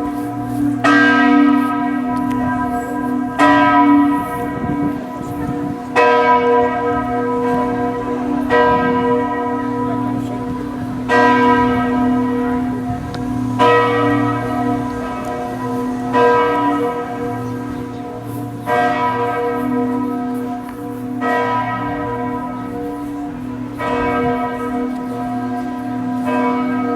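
Chartres Cathedral's church bells tolling, one strike about every two and a half seconds. Each strike rings with a dense, somber set of overtones that sound distorted, over a low hum that carries on between strikes.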